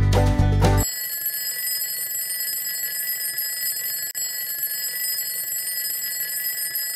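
Background music with a strummed, bluegrass-like feel stops about a second in, and a twin-bell alarm clock rings continuously with a high, steady ring for the rest.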